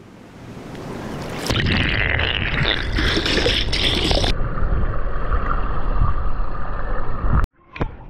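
Stream water heard through an action camera dunked under the surface: splashing and bubbling that swell about a second and a half in, then a duller, muffled underwater rumble. It cuts off sharply near the end, followed by a few short drips or splashes.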